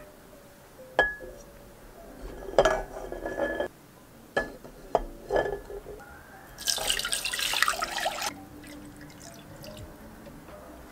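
Raw eggs set down one after another in an empty metal pot, knocking against the bottom several times. Then water is poured into the pot for about a second and a half.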